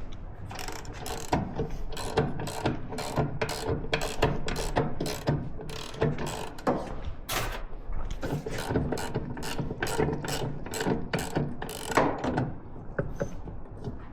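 Hand ratchet wrench clicking in a long run of quick, even strokes, about two to three clicks a second, as bolts on the motorcycle's engine mounting are worked.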